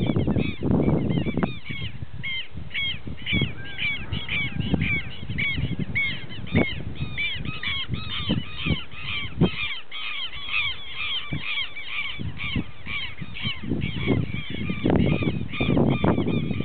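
Many birds calling over one another in short, harsh notes, repeated several times a second, with scattered clicks and a low rumble near the start and again near the end.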